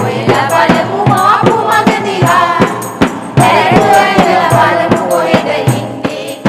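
Women singing a song together over a steady percussion beat.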